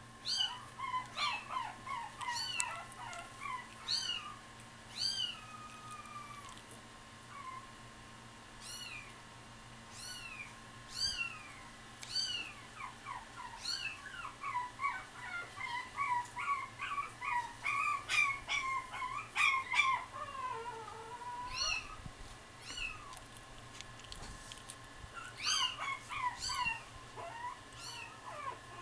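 Many short, high-pitched cries of young pets, whining and squeaking, mostly falling in pitch and sometimes overlapping, in clusters with brief lulls. A steady low electrical hum runs underneath.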